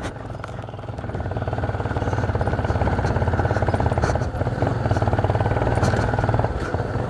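Motorcycle engine running with an even fast pulse, getting louder over the first two or three seconds and then holding steady, with a brief dip near the end.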